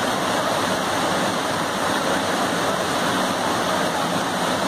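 Muddy floodwater rushing across a low bridge and pouring over its edge: a steady, even rush of water.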